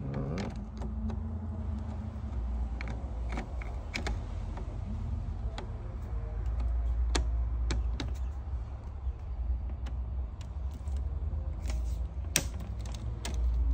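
Screwdriver turning the terminal screws of a GE 20 A double-pole breaker loose: scattered small metallic clicks and ticks of the driver tip on the screw heads, irregular like typing, over a steady low rumble.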